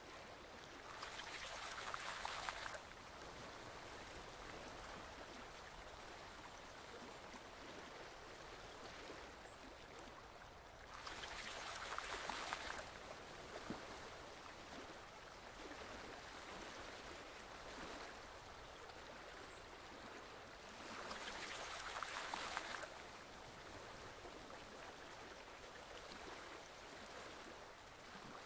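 Forest stream flowing gently, a steady soft rushing of water. Three times, about ten seconds apart, it swells louder for a couple of seconds.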